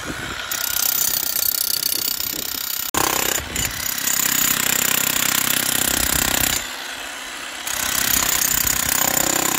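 DeWalt electric demolition hammer chiselling up concrete and stone rubble at the bottom of a pit, hammering rapidly and steadily. It starts about half a second in, breaks off for a moment about three seconds in, and goes quieter for about a second after the middle.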